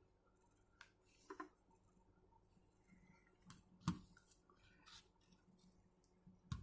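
Near silence, broken by a few faint scattered clicks and taps; the sharpest comes about four seconds in.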